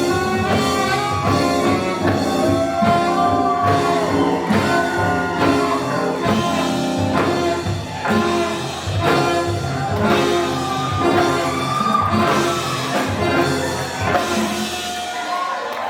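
Music with a steady beat and a melody line over it.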